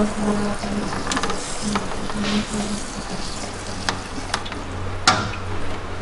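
Hand sprayer wand spraying water onto the frost on a freezer's evaporator to melt the ice away: a steady hiss with a few sharp clicks and knocks scattered through it.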